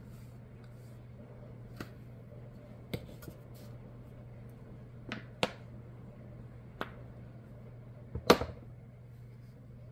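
Scattered light taps and clicks from a paintbrush and paint supplies being handled on a wooden work table while painting, about half a dozen, with the loudest a quick double knock near the end, over a steady low hum.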